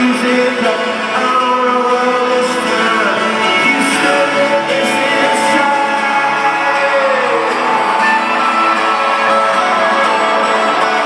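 Live rock band playing, with guitar and a wordless sung melody over the top, heard through a concert recording.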